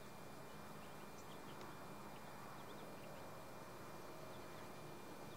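Faint outdoor ambience on a river bank, with scattered short, high chirps over a low steady background.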